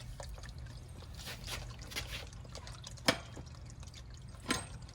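Bicycle chain being worked off the rear sprocket by hand: scattered light clicks and rattles of the metal links, with two sharper clicks about three and four and a half seconds in.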